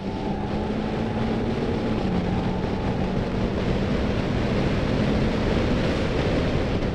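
Car engine running at speed on a track, a steady drone under road and wind noise, heard from inside the cabin. The engine note dips slightly about two seconds in, and the overall noise builds a little towards the end.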